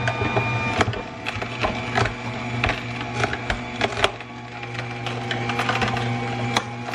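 Aobosi slow masticating (cold press) juicer running with a steady low motor hum while its auger crushes carrot pieces, with irregular sharp cracking clicks.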